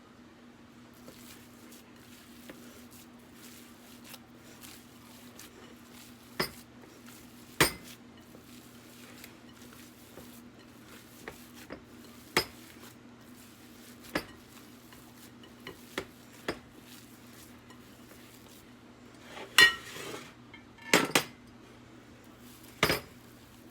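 Cutlery and dishes clinking as food is prepared: irregular sharp clinks and knocks, with a cluster of louder ones near the end. A steady low hum runs underneath.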